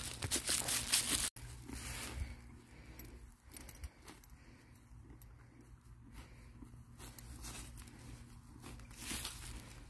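A filly grazing, with faint scattered tearing of grass as she crops it. In the first second there is louder rustling and clinking while she is led.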